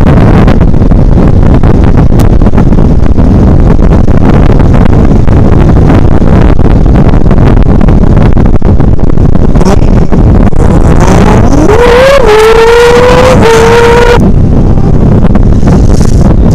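Loud steady rush of wind buffeting the microphone over motorcycle engine and road noise while riding. About eleven seconds in, a whine rises in pitch, holds for about two seconds and cuts off.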